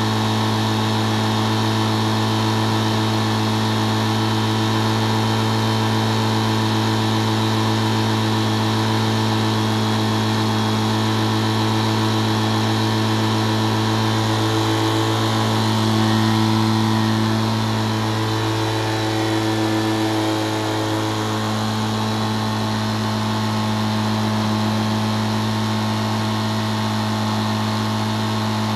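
Microlight trike's engine and propeller idling steadily on the ground, with the engine note shifting briefly about halfway through before settling back to idle.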